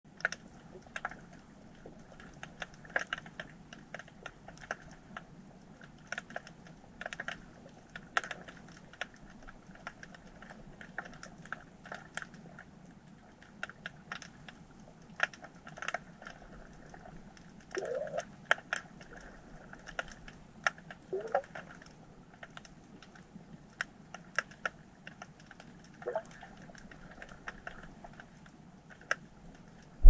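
Faint underwater ambience of a harbour seabed: irregular sharp clicks and crackles over a low steady hum, with three short rising chirps, two close together in the middle and one near the end. These are ordinary sea-floor sounds that the seismometer does not register.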